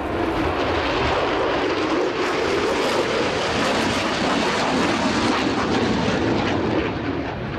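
Lockheed Martin F-22A Raptor passing in flight, its twin Pratt & Whitney F119 turbofans giving a loud, steady jet roar that builds slightly about half a second in and eases a little near the end.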